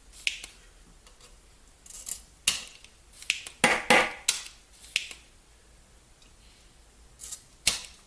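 Spring-loaded desoldering iron's plunger being pushed down and fired again and again, sharp clicks and snaps in uneven bursts, clearing molten solder out of the hot tip.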